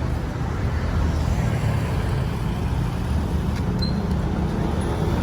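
Street traffic noise: a steady low rumble of road vehicles passing.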